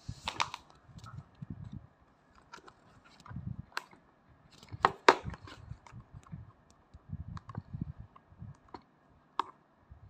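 Hands handling and turning over a cardboard product box: scattered taps, scrapes and clicks, with dull low thumps. The loudest are two sharp clicks close together about five seconds in.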